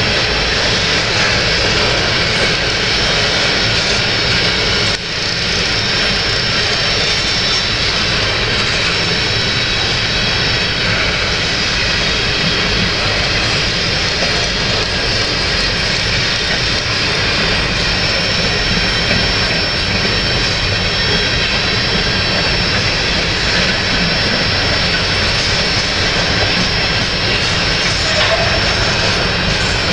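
Freight train of covered hopper cars rolling past at close range: a steady rumble of steel wheels on rail, with a thin high whine over it. The level dips briefly about five seconds in.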